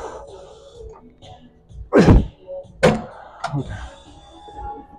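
Lat pulldown machine clanking as the handles are let go and the weight comes to rest: two heavy thuds about a second apart, then a lighter knock.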